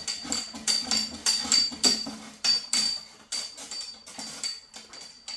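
A run of irregular sharp clicks and light knocks, about a dozen spread over several seconds, over a faint steady high-pitched tone.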